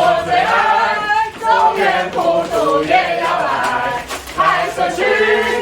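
A group of voices singing together in unison, loud and continuous, with only brief breaks between phrases.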